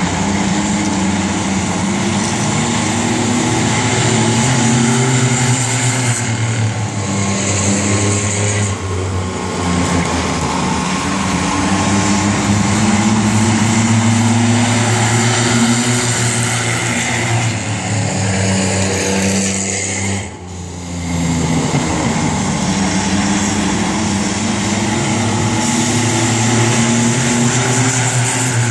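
V6 banger stock cars' engines running hard around the oval, the pitch rising and falling as they go through the turns and down the straights. The sound dips briefly about two-thirds of the way through.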